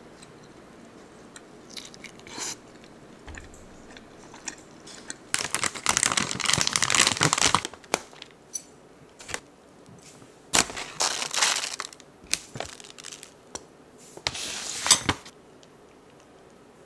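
A plastic food pouch crinkling in several loud bursts as it is handled and rolled oats are spooned out of it, with scattered light clicks of a metal spoon against a glass container.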